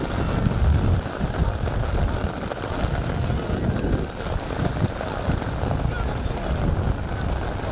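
Wind buffeting the microphone: an uneven low rumble that swells and drops in gusts, over a steady outdoor hiss.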